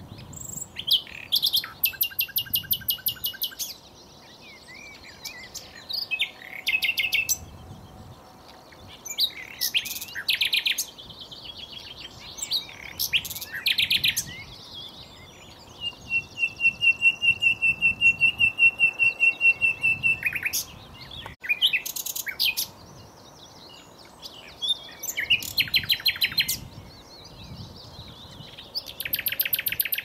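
Common nightingale singing: a string of varied phrases with short pauses between them, many built from fast runs of repeated notes, including one long rapid run of identical notes about halfway through.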